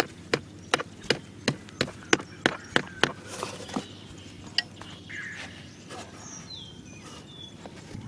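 Small hatchet knocking against cardboard in quick regular strikes, about three a second, stopping about four seconds in.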